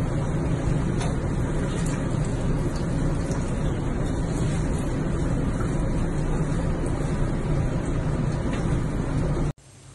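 Steady rushing of water in a bathtub, with a low hum under it.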